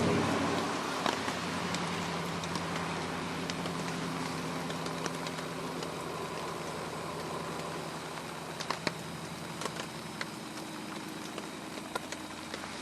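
Morning road traffic: a steady engine hum that slowly fades, over an even hiss of rain with scattered drops ticking.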